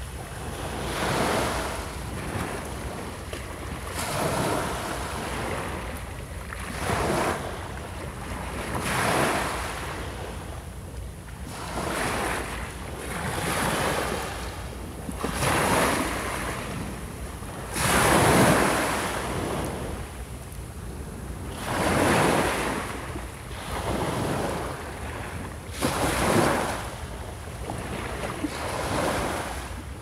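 Small waves breaking and washing up a pebbly beach, a new swell of surf every two to three seconds, with wind rumbling on the microphone.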